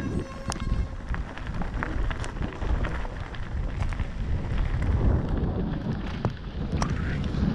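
Mountain bike ridden downhill over gravel and grass, heard from a helmet camera: wind buffets the microphone, and the tyres crunch with frequent sharp clicks and rattles from the bike. It grows louder as the bike picks up speed towards the end.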